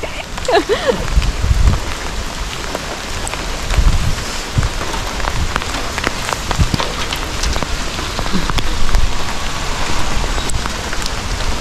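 Rain falling steadily, with many single drops ticking close to the microphone and a few low rumbles.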